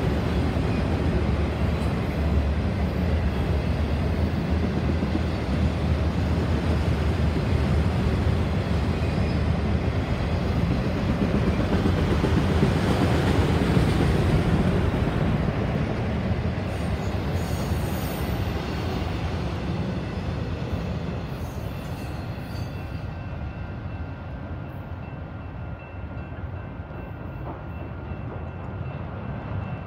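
Freight train of autorack cars rolling past: a steady rumble of wheels on rail that fades over the last third as the train moves off.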